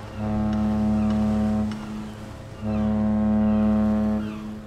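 Ship's horn sound effect played back from an MP3 ambient sound module: two long, steady horn blasts, each about a second and a half, with a short gap between them. Faint high chirps sit underneath.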